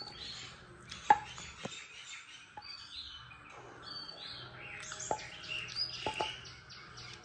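Spatula knocking and scraping against a metal pan as thick halwa is scraped out onto a steel plate: a handful of sharp clinks, the loudest about a second in, with two more close together near the end. Birds chirp repeatedly in the background.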